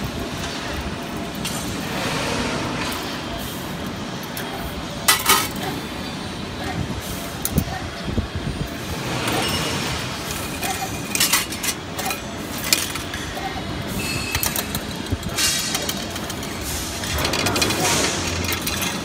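CNC 3D wire bending machine running, a steady mechanical whir from its feed and bending head broken by several sharp metallic clicks and clinks as the wire is fed and bent.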